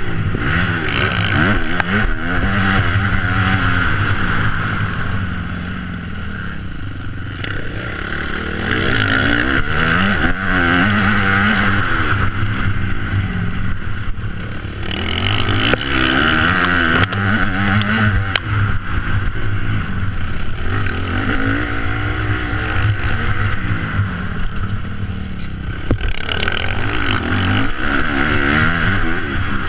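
Motocross bike engine at close range, revving up and dropping off again and again as the rider accelerates, shifts and brakes around the track. The throttle eases off for a couple of seconds about six seconds in and again near fifteen seconds.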